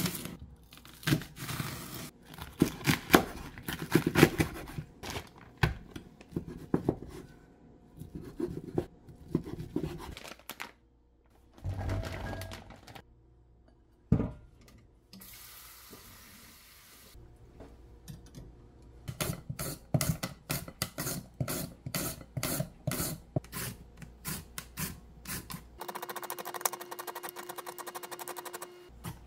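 A knife slices a green onion on a wooden cutting board with irregular knocks. Then comes a short spell of running water at a stainless steel kitchen sink. Then carrots are shredded on a julienne slicer into a glass bowl, in quick, even rasping strokes about three a second.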